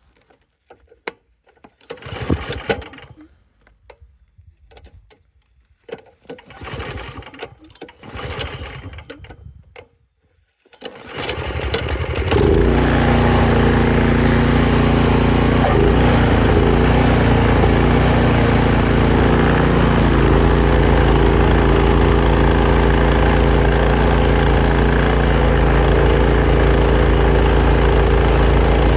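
Some irregular knocks and scuffs, then about eleven seconds in a small engine starts and settles into a loud, steady run, the locomotive's motor getting ready to push through deep snow.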